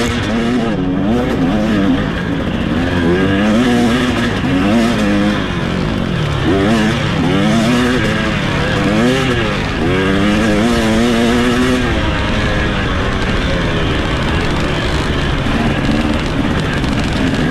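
Off-road racing engine under hard use, its pitch repeatedly climbing and dropping as the throttle is worked on and off. After about twelve seconds the pitch holds steadier.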